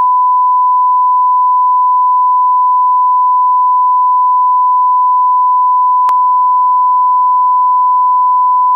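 Steady 1 kHz line-up reference tone, the tone that runs with colour bars at the head of a broadcast tape, held at one unchanging pitch, with a small click about six seconds in.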